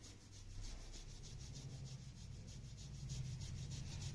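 Hands rubbing briskly back and forth over the skin around a person's ear during a massage: a soft, even swishing, several quick strokes a second.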